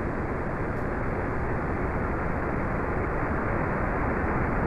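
Falcon 1 first-stage Merlin rocket engine heard through the onboard microphone during powered ascent: a steady, dense rumble with no distinct tones, muffled above the mids. Launch control reports the engine performing nominally.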